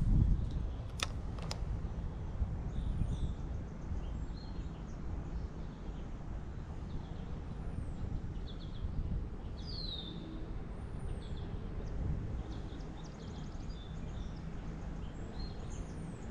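Several birds chirping and singing, short arching calls repeated throughout, over a low steady rumble. Two sharp clicks sound about a second in.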